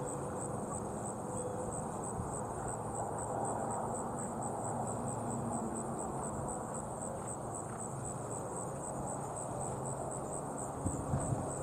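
Field insects, crickets or katydids, keeping up a steady high-pitched chirring that pulses evenly and rapidly, over a low outdoor background hum. A few soft thuds of hooves on turf come in near the end as the horses draw closer.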